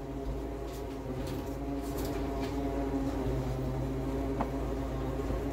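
Vacuum cleaner running with a steady hum. A metal spoon clinks lightly against a glass jar about four seconds in.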